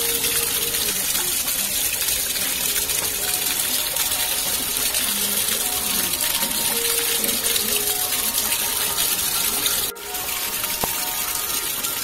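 A strong stream of water gushing and splashing steadily, with a brief sudden drop about ten seconds in.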